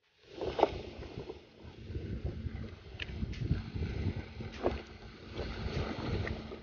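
Wind rumbling and buffeting on the microphone, with a few sharp clicks and knocks from handling, and a faint steady hum that comes in about a second in.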